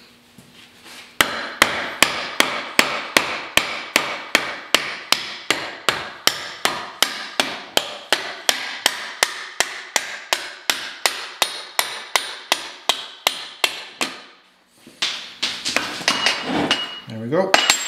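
A red mallet striking steadily at about three blows a second, driving the countershaft pin into an early Ford synchromesh transmission case. The blows start about a second in and stop near the end, followed by a brief scrape rising in pitch.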